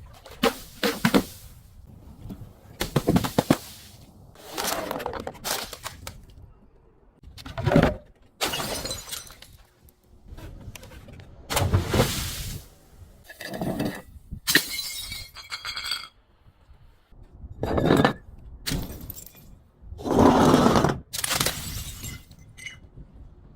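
Glass bottles smashing and shattering one after another, about a dozen crashes with short quiet gaps between, each trailing off in tinkling fragments.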